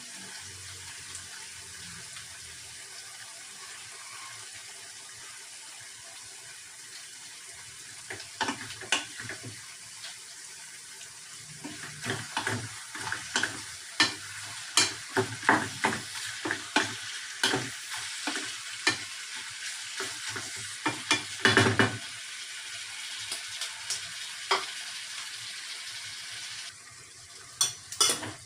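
Diced meat sizzling in a pot on the stove, with a wooden spoon stirring it and clacking against the pot in quick, irregular knocks from about eight seconds in. Near the end the sizzle drops as the pot is covered, followed by a couple of clacks.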